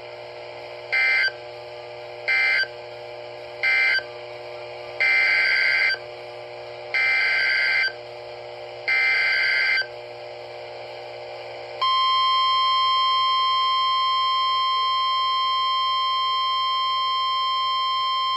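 NOAA Weather Radio emergency alert signal: three short digital data bursts (the end-of-message code), then three longer data bursts (the SAME header of a new warning), each about a second apart. About twelve seconds in, the steady, high warning alarm tone starts and holds.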